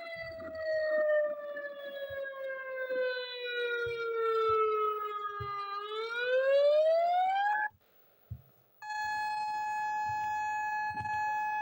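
Civil defence siren sounding the wailing danger signal: the tone slides slowly down in pitch, then climbs back up and cuts off. After about a second's pause a steady unbroken tone starts, the all-clear signal.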